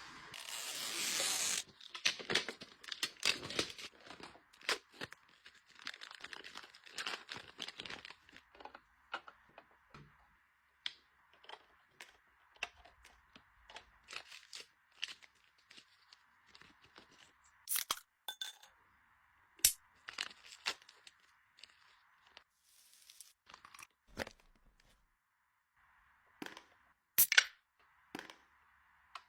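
Packaging being torn open and crinkled for the first several seconds, then scattered light clicks and taps of small items being handled.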